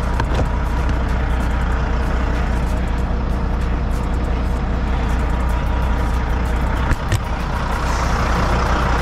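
Western Star truck's diesel engine idling steadily, with a single knock about seven seconds in.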